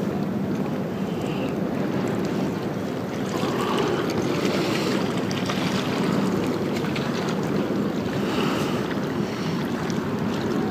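Steady wind buffeting the microphone out on open water, with water noise and a low, constant hum underneath.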